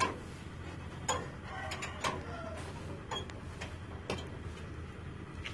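Scattered sharp mechanical clicks and knocks, about one a second, over a steady low hum.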